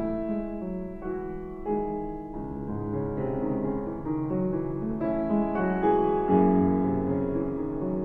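Solo piano music: single notes and chords ring on and overlap as they are held.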